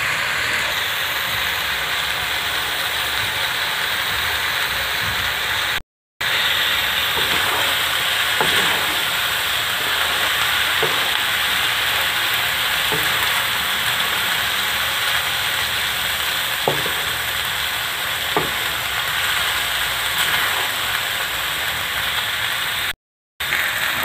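Chicken, vegetables and boiled macaroni and noodles sizzling steadily in a wok, with a few light scrapes of a wooden spatula stirring them. The sound cuts out briefly twice.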